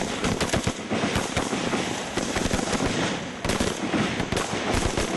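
Rifle fire from several assault rifles: many sharp shots in rapid, overlapping succession, dipping briefly a little past the middle.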